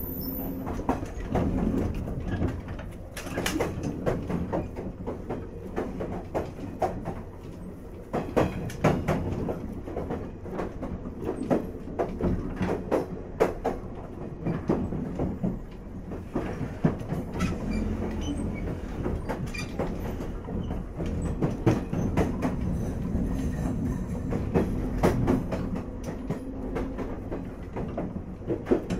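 Running sound from inside a JR 485 series 3000-subseries electric motor car (MoHa 485-3031) under way: a steady rumble with a faint motor hum, and wheels clacking irregularly over rail joints.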